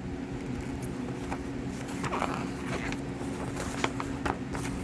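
Rustling and light clicks of small packaging and products being handled, a cluster of crackles from about two seconds in, over a steady low hum.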